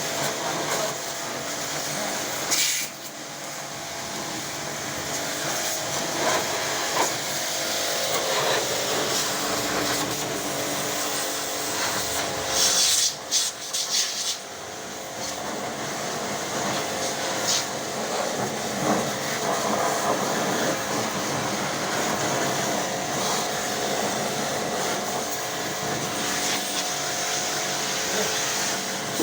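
Portable electric pressure washer running steadily while its water jet sprays an air conditioner's coil and grille, a constant motor whine under a hiss of spray. The spray gets louder and sharper briefly about three seconds in and again around thirteen seconds.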